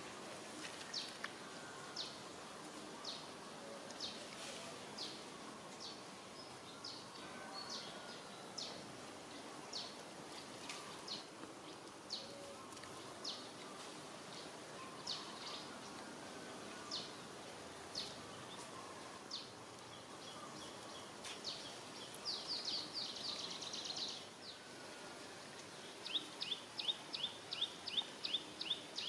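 Outdoor background with small birds chirping: short high chirps about once a second, then two quick runs of chirps, about four a second, near the end.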